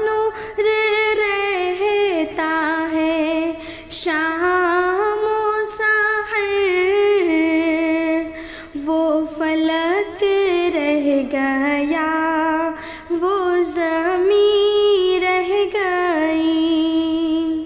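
A woman singing an Urdu naat unaccompanied, in long drawn-out phrases with gliding, ornamented notes and short breaths between phrases.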